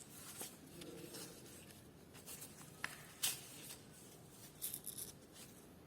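Faint scratching of someone writing, with a couple of sharp clicks about three seconds in and a few quick scratchy strokes near the end.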